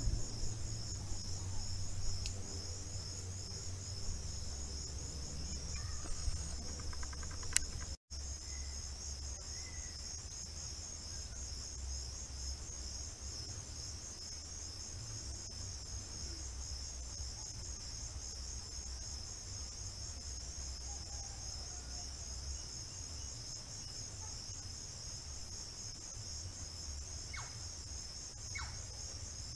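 A chorus of insects trilling in a steady, finely pulsed high-pitched drone, with a low rumble underneath; the sound drops out briefly about eight seconds in.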